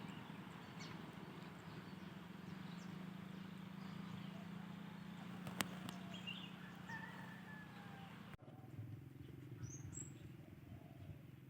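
Faint rural outdoor ambience with a few scattered bird chirps over a low steady hum, and one sharp click about halfway through. The background changes abruptly about two-thirds of the way in.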